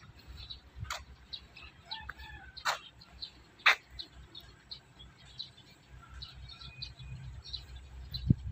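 Birds chirping in many short high calls, with a few sharper calls about one, three and four seconds in, over a low steady rumble.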